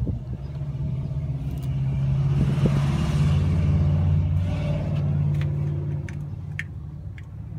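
A motor running with a steady low hum that swells and then eases off, with a few light clicks near the end.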